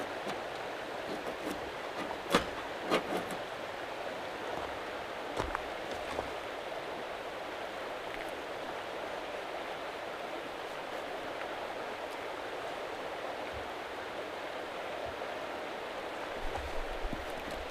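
Rushing creek: a steady, even wash of flowing water. In the first six seconds a few sharp knocks and clicks come through it as pieces of fatwood kindling are handled and set down.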